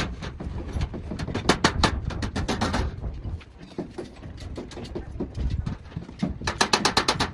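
Rapid, even tapping of a hammer on car body sheet metal, about seven strikes a second. It is loud for the first three seconds, fainter through the middle and loud again near the end.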